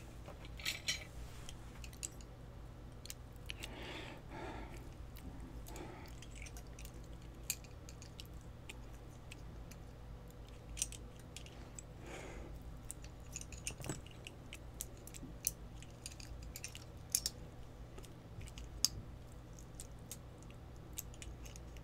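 Faint, scattered small metallic clicks and taps of a pin-tumbler lock cylinder and its steel picking tools being handled as the lock is gutted, over a steady low hum.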